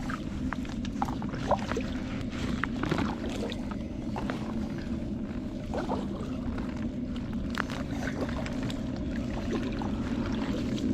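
A fishing paddleboard out on the water: a steady low hum runs throughout, with scattered light splashes and small knocks against the board.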